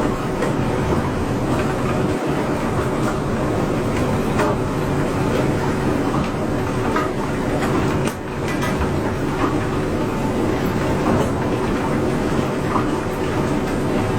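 A machine running steadily with a continuous rumble and a rattling clatter, dipping briefly about eight seconds in.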